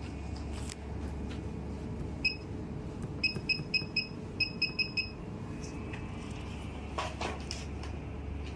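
Short, high electronic beeps from the 5D MaxLipo laser machine's touchscreen as keys are pressed to set the treatment parameters: one beep, then two quick runs of four.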